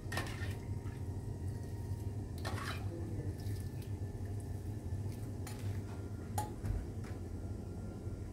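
A few scattered clinks and knocks over a steady low hum.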